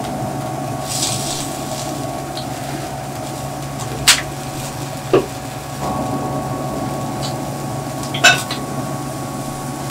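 Electric smokeless grill running with a steady fan hum as seafood cooks on its grate, with three sharp clicks of chopsticks against the tableware.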